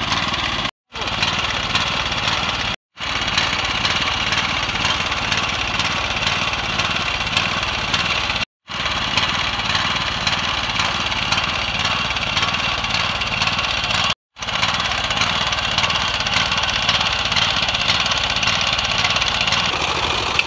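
Small engine of a walk-behind rice transplanter running steadily. The sound breaks off for a split second four times.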